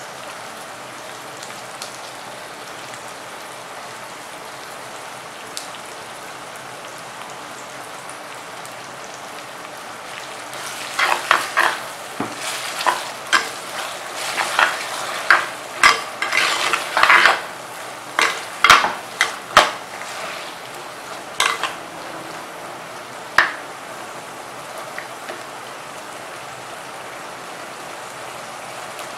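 Shallots, garlic and curry leaves sizzling in oil in a clay pot. From about ten seconds in, a ladle stirs and scrapes against the pot in a run of clacks for about thirteen seconds, then the steady sizzling carries on.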